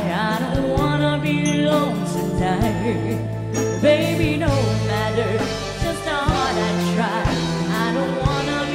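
A pop song played live by a band: women singing into microphones over drums, bass notes and keyboard, with a steady beat.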